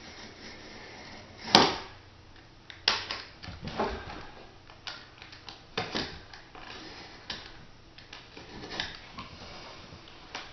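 Utility knife trimming slivers off the edge of a vinyl flooring sheet, with scattered clicks, knocks and rustles of handling; the loudest is a sharp snap about a second and a half in.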